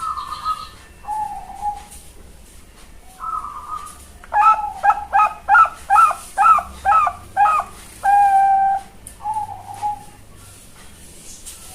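Young Bangkok-bred zebra dove (perkutut) cooing: a few short single coos, then about four seconds in a quick run of about eight clipped notes ending in one longer held note, followed by a short coo.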